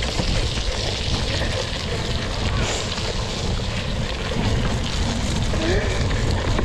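Wind buffeting a GoPro action camera's microphone as it rides on a cyclocross bike at race speed: a steady, rough rumble.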